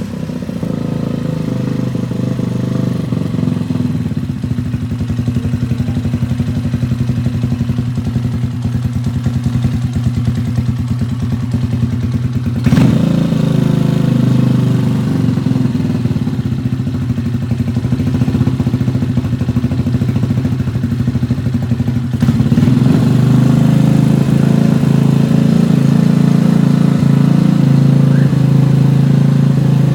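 Shelby cafe racer motorcycle's Lifan four-stroke engine idling steadily. There is a short blip about 13 seconds in, and the note turns a little louder and fuller from about 22 seconds in.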